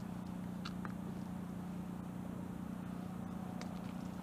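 Steady low electric hum of a small motor running on the boat, with a few faint clicks.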